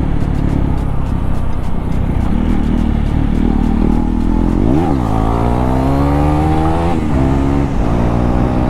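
KTM Duke 390 single-cylinder engine running without its dB killer. Its pitch drops and recovers sharply a little before halfway at an upshift, then rises steadily as the bike accelerates, with further shifts near the end.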